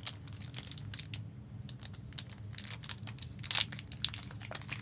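Plastic wrapping crinkling and rustling as it is handled, a string of short crackles that is densest about three and a half seconds in, over a steady low hum.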